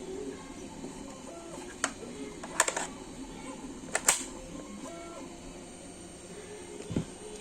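Several sharp clicks and clacks over faint background music: a single click, then a short rattle of clicks, a loud double click, and a duller knock near the end.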